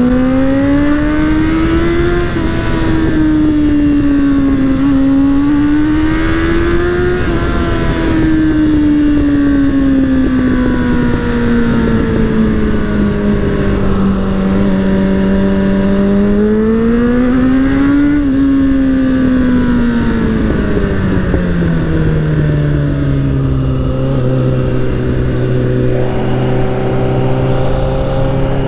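Suzuki Bandit 600's inline-four engine and exhaust, heard from the rider's seat over wind rumble, revving up and down with the throttle. The pitch climbs twice in the first seven seconds, sinks slowly, rises again around eighteen seconds, then settles to a steady lower drone near the end.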